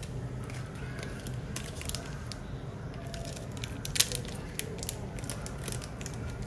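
Thin clear plastic sleeve crinkling as it is handled and pulled off a sunglasses arm, with one sharper click about four seconds in.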